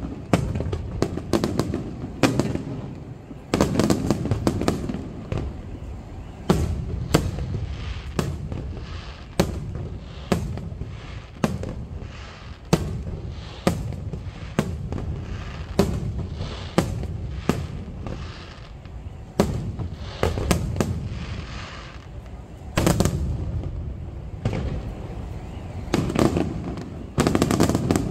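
Aerial firework shells bursting overhead in an irregular string of sharp bangs, about one or two a second, over a continuous low rumble of echoing reports. Heavier clusters of booms come about four seconds in, and again near the end.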